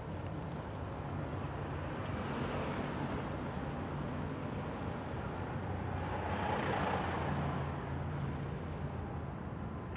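Steady outdoor noise with a low rumble, swelling louder about six to seven seconds in.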